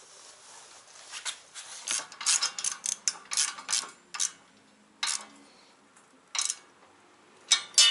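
Socket ratchet wrench clicking in a run of quick strokes as a nut is tightened on the aerator's steel axle, followed by a few separate metallic clinks of washers and bolts being handled.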